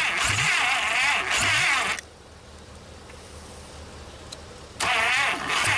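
1956 Packard 374 V8 being cranked over by its starter without catching, on its first start attempt in years. It cranks for about two seconds, stops suddenly, then cranks again near the end.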